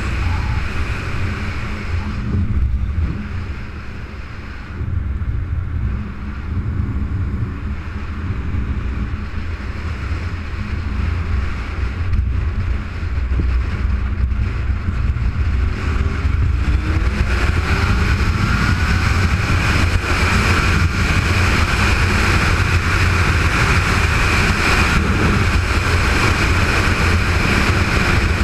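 Sport motorcycle riding with wind rushing over the microphone and a low engine rumble. About halfway through the engine accelerates, rising in pitch and getting louder, then holds at speed.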